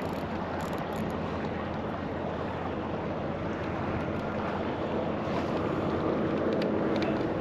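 Steady wind on the microphone and choppy sea water washing around a kayak, growing a little louder near the end.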